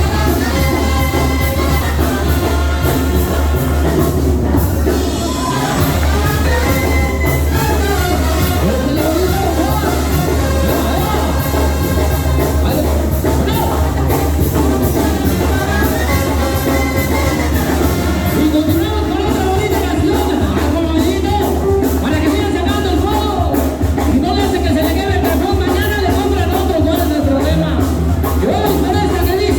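Latin music with singing, played loud with a heavy bass.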